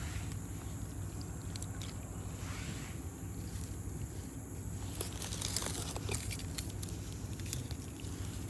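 Scattered rustles and light clicks of hands handling fishing line among dry grass and leaf litter close to the microphone, busiest about five to six and a half seconds in, over a steady low hum.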